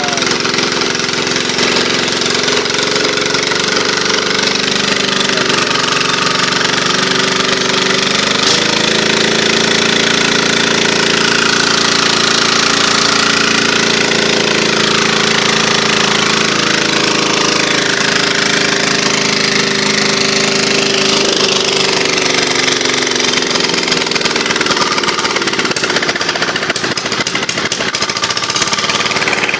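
Diesel engine running with a loud, knocking clatter. Its speed steps up about eight seconds in, holds, and drops back about twenty-one seconds in.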